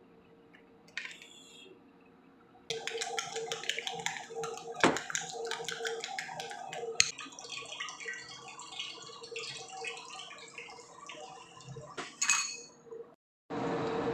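Beaten egg and milk sizzling and crackling in a hot frying pan on an electric galley hotplate, starting abruptly a few seconds in, with a low steady hum underneath. Near the end the sound cuts out briefly and gives way to a steady hiss.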